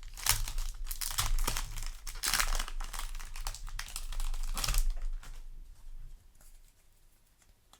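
Foil Yu-Gi-Oh! booster pack wrapper being torn open and crinkled, a dense rustling crackle for about five seconds, then only faint handling.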